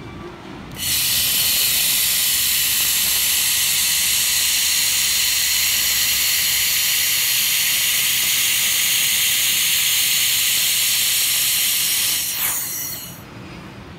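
2000 W handheld laser welding gun firing along a steel fillet joint: a loud, steady hiss that starts about a second in and cuts off near the end, with a few clicks as it stops.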